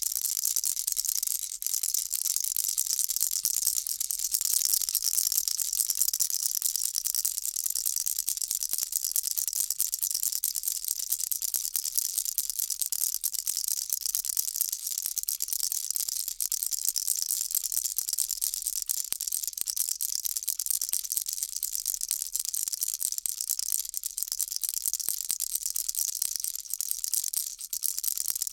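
Baby rattle shaken continuously: a dense, high-pitched rattling that swells and eases in gentle waves.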